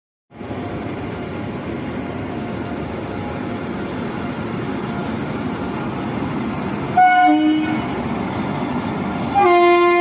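Indian Railways electric locomotive passing at speed, with a steady rumble of wheels on rail. A train horn gives a short blast about seven seconds in and a longer, louder blast near the end.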